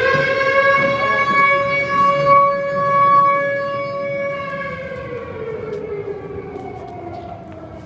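A siren wailing: one loud pitched tone that holds steady for several seconds, then slowly falls in pitch and fades toward the end.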